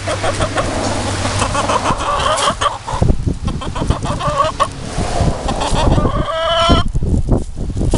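A chicken clucking repeatedly, with a longer drawn-out call near the end. From about three seconds in there are scattered low thumps.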